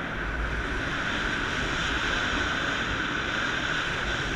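Wind rushing over an action camera's microphone in paragliding flight: a steady airflow hiss with low gusty rumbles on the microphone.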